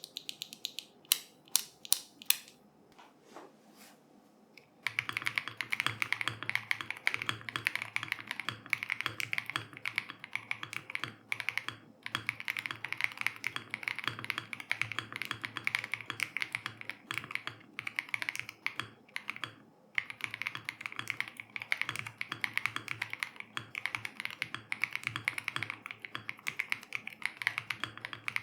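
Neo80 CU mechanical keyboard, built with no case foam, being typed on: a few single keystrokes, then from about five seconds in continuous fast typing with a couple of brief pauses.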